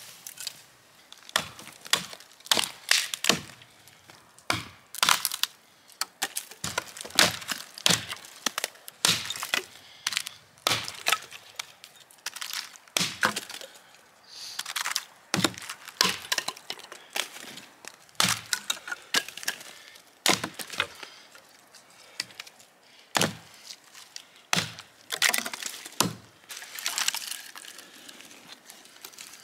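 Dry dead branches on a fallen conifer being chopped with a hatchet and snapped off by hand: a long run of sharp, irregular wood cracks and chops, several a second at times.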